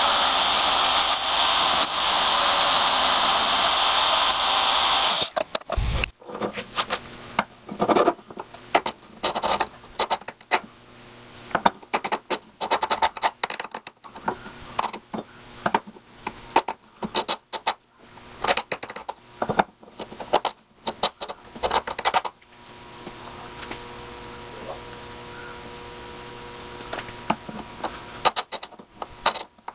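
Metal-cutting bandsaw running as a steel file blank is cut on it, switched off abruptly about five seconds in. It is followed by irregular scrapes and knocks of the steel blank being handled against a wooden bench, and in the last third a faint steady hum.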